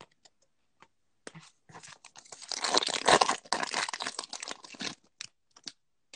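A 2020-21 Panini Select basketball card pack's wrapper being torn open by hand: a dense crinkling tear lasting about three seconds, with light clicks and taps of handling before and after.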